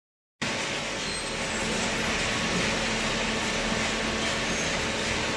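Steady machine running noise from a hydraulic baler: a constant hiss with a faint low hum underneath, starting abruptly just after the beginning.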